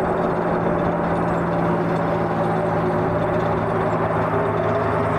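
Gulfstream G150 business jet's twin Honeywell TFE731 turbofans running at low taxi power: a steady engine sound with several held tones.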